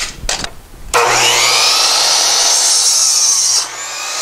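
DeWalt miter saw starting about a second in, its motor spinning up with a rising whine, then cutting through a pressure-treated 2x4. The sound drops near the end as the cut finishes and the blade spins on.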